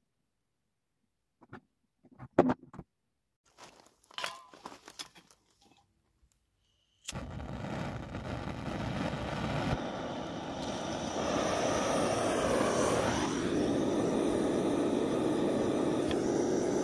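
A few light metal clicks and taps as brass gear parts are handled. About seven seconds in, a hand-held gas blowtorch on a gas canister starts with a steady rushing hiss that runs on.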